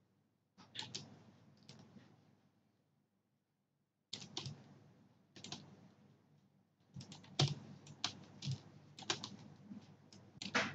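Faint, irregular clicks and taps of a computer keyboard and mouse, coming in small clusters, with a pause of a second or two near the start.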